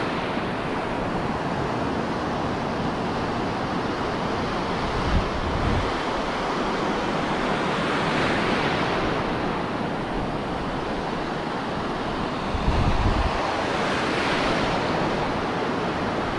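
Sea surf washing in over shallow sand, a steady rush that swells twice as waves run in. Wind buffets the microphone a couple of times.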